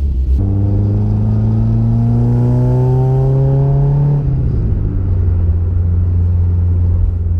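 Holden Gemini's engine accelerating as the car pulls away, its pitch rising steadily for about four seconds, then dropping at a gear change and running steady.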